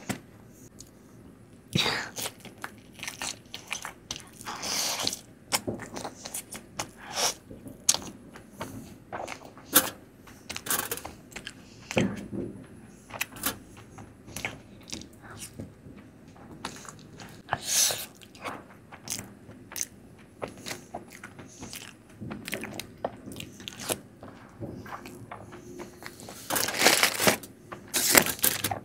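Close-miked eating of Indian sweets: biting and chewing with many short mouth clicks, and a few louder moments, the longest near the end.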